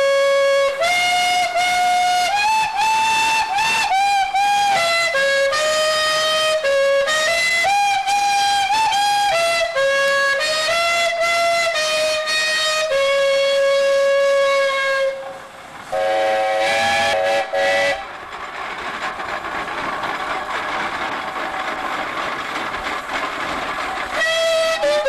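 Steam calliope of ten antique steam whistles on a 1914 Huber 25/55 steam traction engine playing a tune, one clear whistle note after another. About two-thirds through the tune breaks off; a lower whistle sounds for a couple of seconds, then a steady hiss for several seconds, and the tune starts again near the end.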